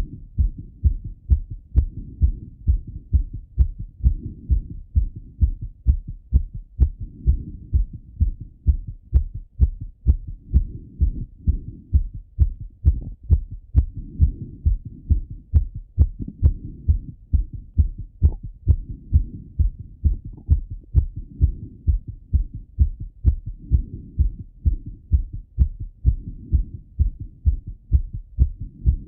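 A man's heart beating fast and regularly, heard through a stethoscope on the chest, still raised from a run: a steady train of low lub-dub thumps.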